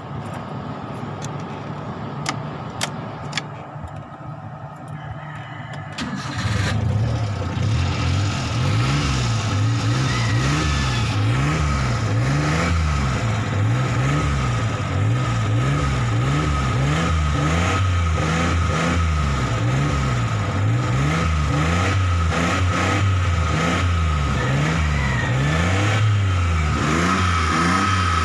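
Three-cylinder van engine, which burns oil and smokes, heard from inside the cab: it runs at a steady idle, then from about six seconds in it is revved up and down over and over, a rise and fall about every one and a half seconds, to mix in a freshly added engine oil additive.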